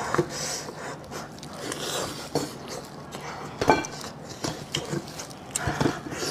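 Eating sounds up close: irregular wet smacks and clicks of biting and chewing, the loudest a little past halfway.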